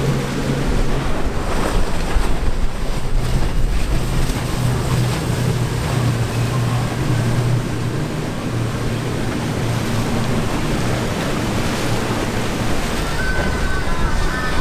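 Motorboat engines running with a steady low drone, over the rush of waves and wind buffeting the microphone.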